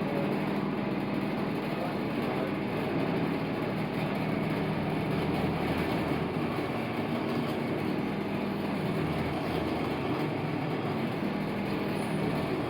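Bench pillar drill running steadily while drilling a 6 mm hole in steel, the bit fed down, eased off and brought back up so that it does not get too hot.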